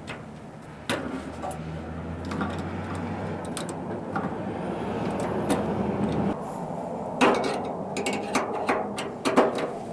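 Clicks and light metal knocks from hands and a screwdriver working on a furnace fan and limit control, as its tabs are pressed and its mounting screw is turned. Under them a steady low hum stops about six seconds in.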